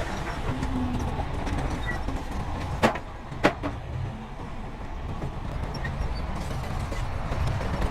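Heavy diesel earthmoving machinery running with a steady low rumble, with two sharp metallic clanks about half a second apart near the middle.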